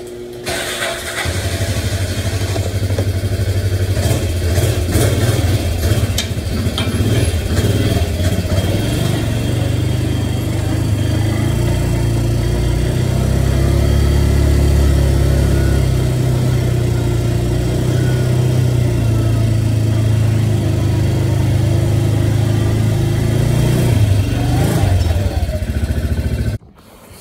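Small vehicle engine running steadily while being driven, a low hum that picks up within the first second and stops abruptly near the end.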